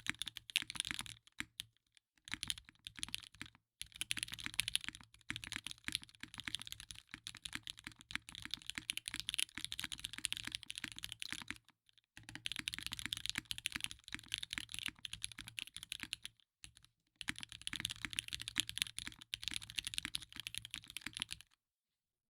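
Mechanical keyboard being typed on fast: a Merisi Sessantacinque built with lubed Gateron X linear switches on a carbon fiber plate with doubleshot keycaps, clacking in quick runs broken by short pauses. The typing stops about a second before the end.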